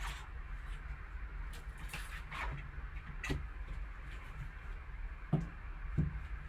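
Handling of a sealed cardboard trading-card box being opened: scattered light scrapes and clicks, then two soft knocks near the end, over a steady low hum.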